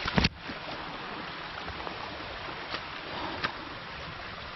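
Stream in a mountain valley running steadily, with a short loud knock at the very start and a couple of faint clicks later.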